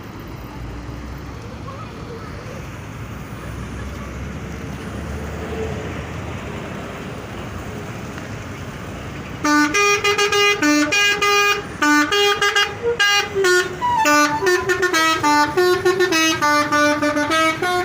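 Bus 'telolet' musical horn, a multi-tone air horn, playing a quick tune of short tooted notes at several pitches. It starts about halfway through, loud over a steady background of traffic noise and voices.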